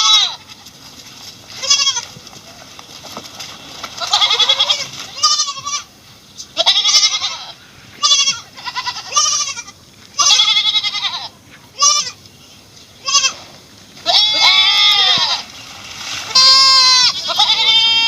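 Goat bleating over and over: about a dozen high, wavering calls, each under a second to about a second long, with short pauses between them.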